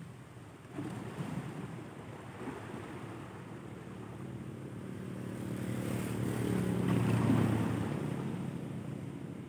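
Sea water washing against a rocky shore, with wind on the microphone. A low engine hum swells to its loudest about seven seconds in and then fades.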